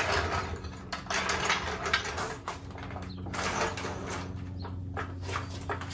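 Hydraulic floor jack being pumped by its long handle, a stroke about every second, each one creaking and squeaking from dry pivots that need grease. A steady low hum runs underneath.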